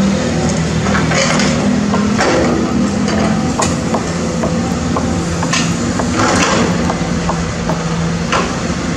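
Caterpillar 320D excavator's diesel engine running steadily under digging load, with the steel bucket knocking and scraping on broken concrete and soil in several sharp clacks.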